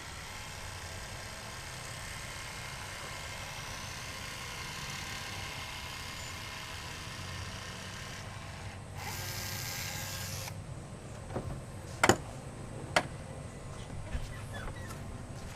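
A battery-powered caulk gun runs steadily as it lays a bead of windshield urethane. A brief hiss comes about nine seconds in, and a few sharp clicks follow near the end.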